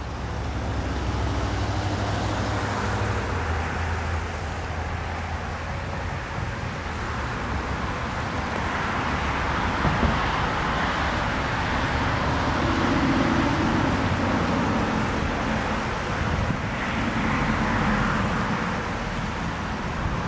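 Road traffic noise: a steady wash of passing cars that swells and fades twice, with a low rumble underneath.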